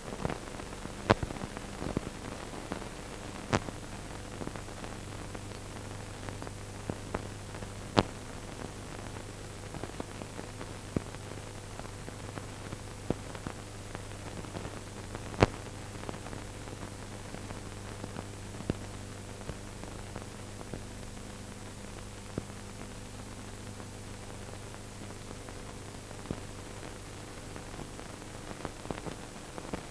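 Steady hiss and crackle of an old film soundtrack transfer, with scattered sharp clicks and pops and a low electrical hum that comes in a few seconds in; no other sound.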